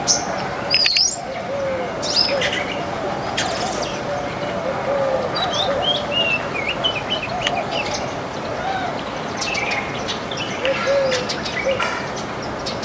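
A flock of small backyard birds chirping and twittering: many short, high chirps and whistled notes, with a lower, repeated call running underneath.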